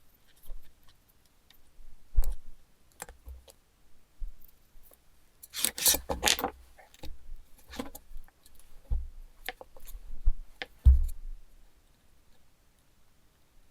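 Hands handling small parts and tools at a workbench: scattered clicks and light knocks, with a second-long scraping noise near the middle.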